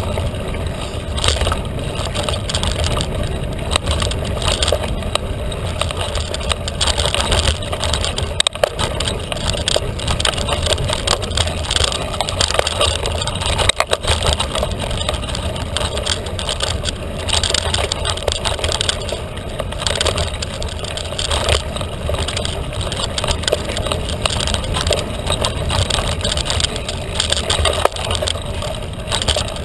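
Carbon 29er mountain bike ridden fast over a dirt trail: a steady rumble and hiss of tyres and rushing air, broken by frequent clattering knocks as the bike goes over bumps.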